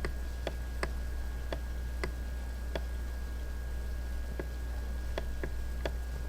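Computer mouse clicking: about ten short, sharp clicks at uneven intervals, over a steady low electrical hum.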